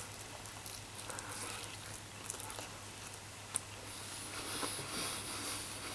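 Faint eating sounds: meat being bitten off a pork rib bone and chewed, with small wet clicks, and a soft hiss for about a second and a half near the end.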